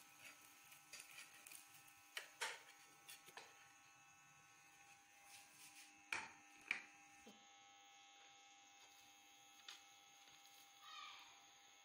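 Faint clatter over a steady low electrical hum: a flat metal spatula scraping and knocking against an iron tawa griddle and a ceramic plate. The loudest are two sharp knocks about six seconds in, half a second apart.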